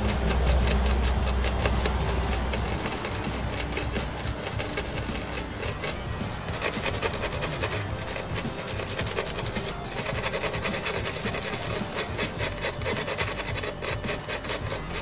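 Small wire brush scrubbing rapidly back and forth over a circuit board wet with isopropyl alcohol, a fast scratchy rasp, clearing battery-leak corrosion from chip pins and traces. A low hum sits under the first few seconds.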